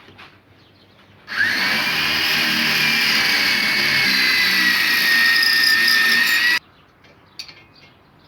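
Electric drill running: it spins up about a second in with a rising whine, runs steadily for about five seconds, then cuts off suddenly.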